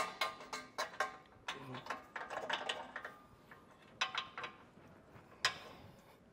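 Steel nut plate clinking and scraping against the inside of a Jeep Wrangler's frame rail as it is slid up into the frame by hand: a quick run of light metal clicks, another cluster about four seconds in, and one sharper knock near the end.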